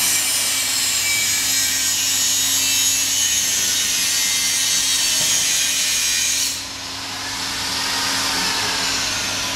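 Album gilding and edge-grinding machine running, with a steady rasping hiss from its grinding unit over a low motor hum. About six and a half seconds in, the high rasping drops away suddenly and the machine carries on more quietly, slowly building again.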